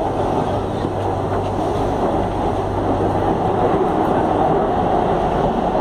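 Metro train running, heard from inside the carriage: a steady rumble of wheels on the track. About four seconds in a low hum drops out and the noise thickens as the train enters the underground tunnel.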